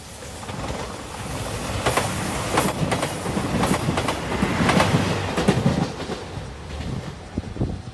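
JR Shikoku 2700 series diesel limited express train passing over a level crossing, its wheels clacking over the rail joints. The sound builds to its loudest about five seconds in, then fades near the end.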